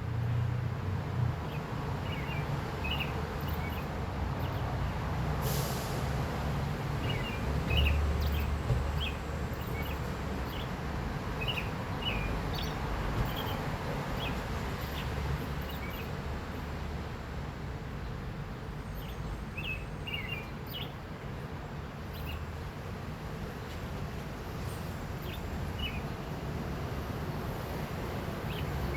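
An oriole calling in short, scattered chirps and whistled notes over a louder steady low rumble.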